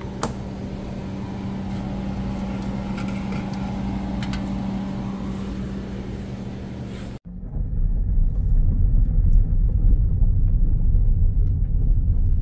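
A steady hum with a low tone and a few faint clicks, then after a sudden cut about seven seconds in, the louder low rumble of a car driving at road speed.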